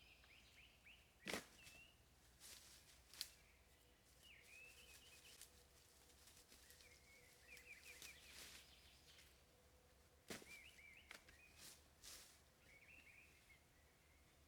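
Small birds chirping and twittering in short runs, with a few sharp knocks standing out above them, the loudest about a second in, at three seconds and near ten seconds.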